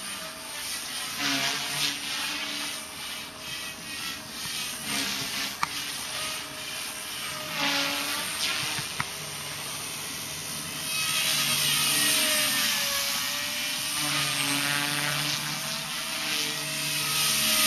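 Align T-Rex 250 micro electric RC helicopter in flight: its motor and rotor whine wavers up and down in pitch as it manoeuvres, with the rotor whoosh swelling louder a little past halfway. The tail is wobbling.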